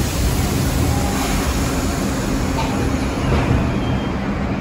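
New York City subway train running, a steady rumble of wheels and motors on the track.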